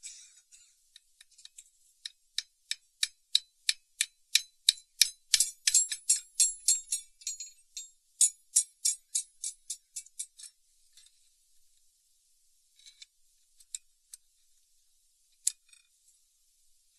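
Light, sharp metal-on-metal taps on the steel ferrule of an axe's wooden handle, about three a second with a brief ring, as the ferrule is set in place. The run stops about ten seconds in, and a few single taps follow.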